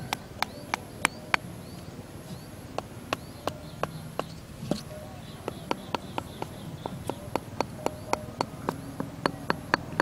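A metal-bladed hand tool knocking on bamboo sticks in a series of sharp taps. They come irregularly at first, with a short pause, then settle into an even run of about four taps a second in the second half.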